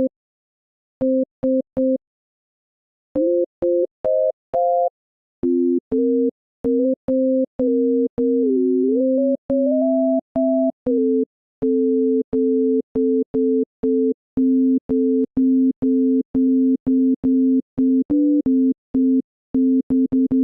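A bare software-synth tone playing short gated notes with dead silence between them, each note starting and stopping with a click. The pitch steps up and down and glides in the first half; after that a single note repeats in an even pulse of about two and a half a second.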